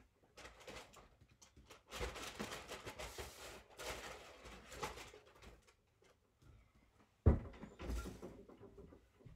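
Rustling and handling noises at a table for a few seconds, then a single sharp knock as a person gets up from a wooden chair, followed by shuffling movement.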